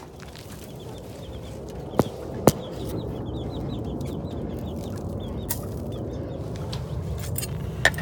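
Pheasants and jungle fowl clucking in quick, high, repeated calls, with two sharp clicks about two seconds in and another near the end.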